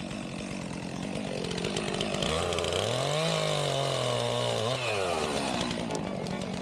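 Chainsaw running, revving up about two seconds in, holding at a high pitch, then easing off near five seconds.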